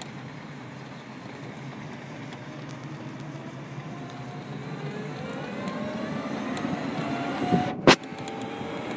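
Renault Twizy's electric drive motor whining, its pitch rising steadily as the car gathers speed, over road and wind noise in the open-sided cabin. A single sharp knock near the end.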